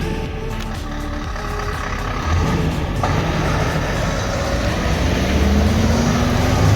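Heavy truck engine running as the truck pulls away, its engine note rising over the last two seconds as it accelerates.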